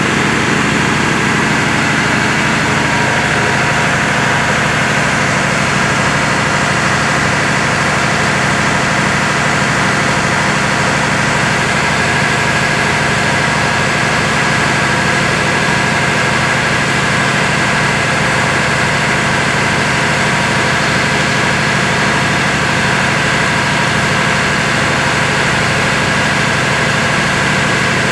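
A diesel engine running steadily at constant speed, a loud, unchanging machinery drone with a steady high whine on top.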